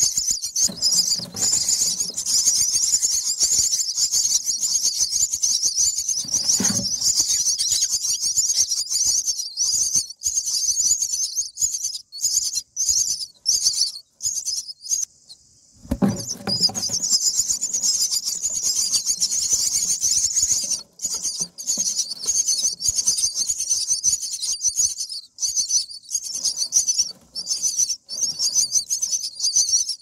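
Common myna nestlings begging: a continuous high, rasping hiss-chatter that breaks off briefly about halfway through, with a couple of dull bumps in the nest.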